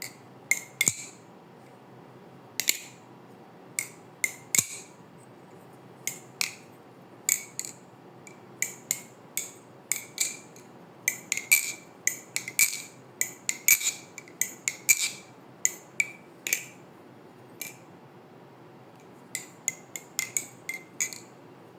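Thomas Baikal balisong being flipped: the handles and blade clack together in sharp metallic clicks with a brief ring, irregular and often in quick pairs. They come thickest in the middle, with a short lull before a last cluster near the end.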